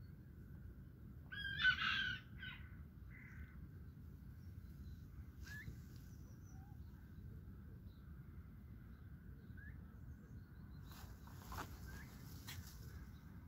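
Turkeys calling: one loud, harsh call about a second and a half in, with two shorter, weaker calls right after. Faint short peeps follow here and there over a low steady background noise.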